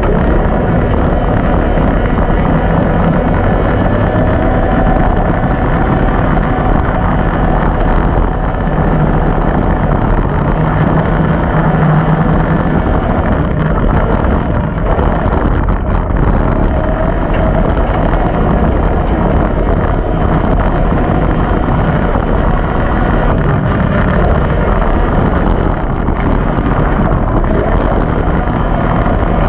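Arctic Cat Wildcat XX race side-by-side engine running hard under racing load, heard from inside the cockpit. It is loud and continuous, with the engine pitch rising and falling as the car accelerates and backs off.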